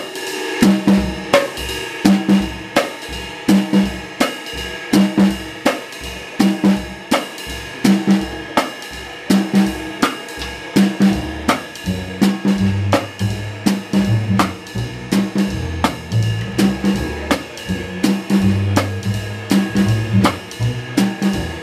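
Jazz drum kit, heard close up, playing a steady rhythm on cymbals, snare and bass drum as the opening of the tune. About halfway through, low double bass notes come in under the drums.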